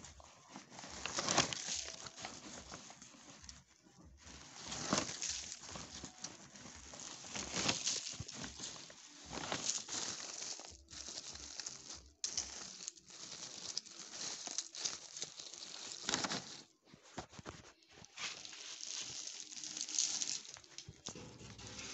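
Dry bean pods and husks rustling and crackling in a woven basket as they are stirred and picked through by hand, in uneven bursts.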